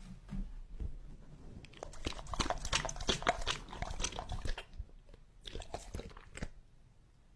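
Pit bull-type dog lapping liquid from a glass bowl close to a microphone: a dense run of wet clicks and slurps for about three seconds, then a shorter burst of the same after a brief pause.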